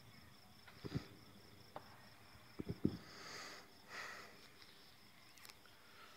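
Crickets chirping steadily in a night-time lull, with a few short dull thumps about a second in and a close pair a little before the middle.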